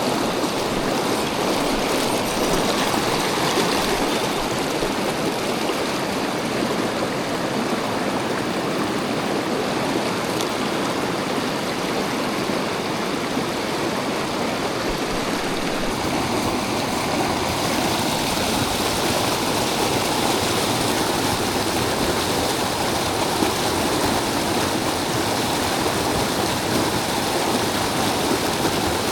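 Mountain stream rushing steadily over rocks, a continuous even wash of running water.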